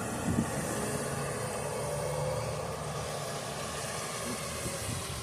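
Road traffic: a vehicle engine running with a steady low hum.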